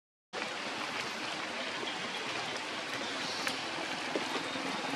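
Steady outdoor background noise, an even hiss-like rush, with a few faint ticks; it cuts in after a brief dropout at the start.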